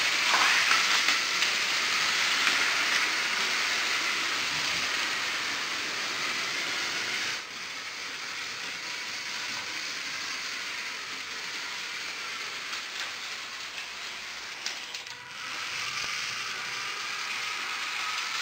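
Lego 9V trains running on plastic track: a steady whirring and rattling of the train motors and wheels. It is loudest at first and drops suddenly about seven seconds in.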